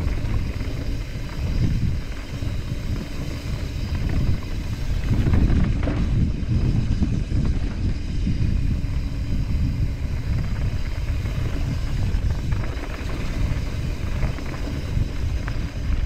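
Mountain bike descending a dirt trail at speed: a steady low rumble of wind buffeting the microphone and tyres running over dirt and gravel, with a few short clicks and knocks as the bike rattles over bumps.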